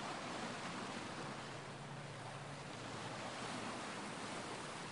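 Steady rushing coastal ambience of surf and wind.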